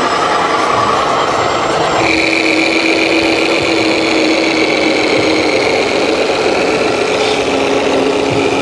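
RC scale model truck running, its sound module playing a diesel truck engine; the engine sound changes abruptly about two seconds in.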